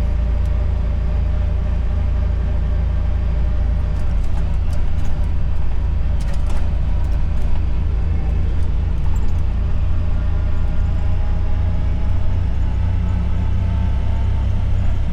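Side-by-side utility vehicle's engine running steadily while riding: a loud, low drone with a few clicks and rattles over it.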